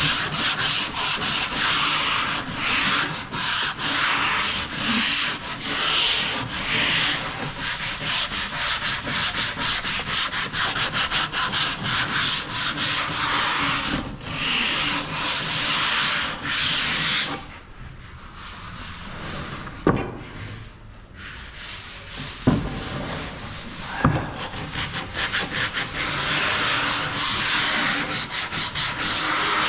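Wooden cabinet doors being sanded by hand with sandpaper in quick back-and-forth strokes, smoothing them for lacquer paint. The sanding pauses for a few seconds a little past the middle, with a few sharp knocks, then starts again.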